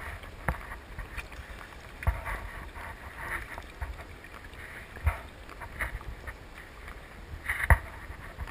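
Choppy seawater slapping and lapping against a kayak hull, with light wind on the microphone. Four dull thumps come through, the loudest near the end.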